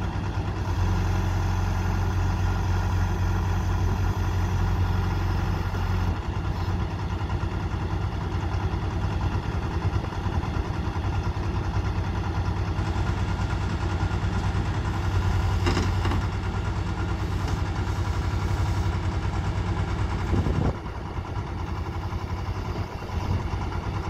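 John Deere 310C backhoe loader's diesel engine running steadily while the machine holds itself up on its boom and bucket. A deep low hum in the first quarter thins out, and the engine gets a little quieter about five-sixths of the way through.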